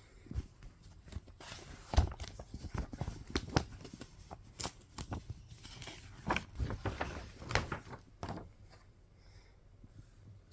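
Hands handling a photobook album and its packaging: irregular paper and plastic rustling and crinkling with light knocks and taps, starting about a second and a half in and stopping a little after eight seconds in, with the sharpest knock about two seconds in.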